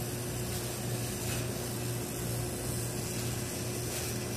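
3Doodler 3D printing pen running at slow extrusion speed: a steady hum with a thin constant tone, from its cooling fan and filament-drive motor.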